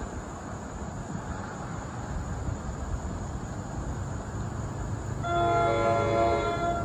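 Commuter train horn sounding a multi-note chord for about a second and a half near the end, over a steady low rumble.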